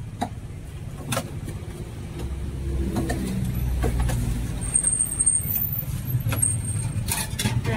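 A road vehicle's engine running close by, low and steady, growing louder about two seconds in, with scattered light clinks of utensils and bowls.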